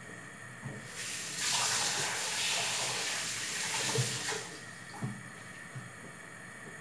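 Kitchen tap running for about three and a half seconds, a steady hiss of water that starts about a second in and stops; a few light knocks follow.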